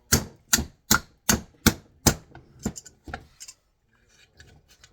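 Six sharp blows in quick succession, about two and a half a second, from a hammer being struck against stuck nuts on a large mining power receptacle, followed by a few lighter taps. The nuts are seized and won't break loose.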